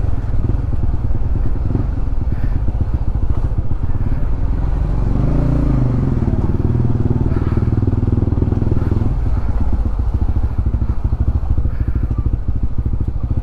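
Honda CB150X's single-cylinder engine running as the motorcycle rides along, heard from on the bike. The revs rise and fall again about five seconds in.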